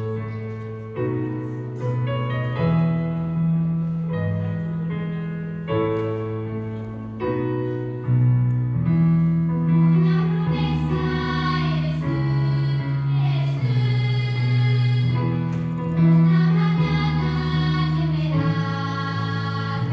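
A children's choir of girls singing together with piano accompaniment, heard through the hall's sound system. Chords sound every second or two at first, and the voices swell, wavering with vibrato, from about eight seconds in.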